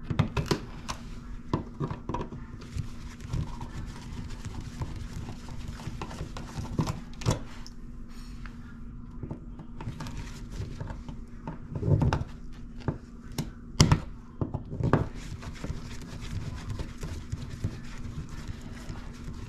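Screwdriver working at a wall outlet: scattered small clicks, scrapes and knocks of the tool against the screws and plastic, with a few louder knocks about twelve and fourteen seconds in. A steady low hum runs underneath.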